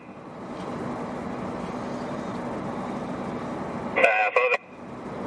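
Steady background noise with a faint low hum, broken about four seconds in by a brief half-second burst of a voice over a railroad two-way radio that cuts off abruptly.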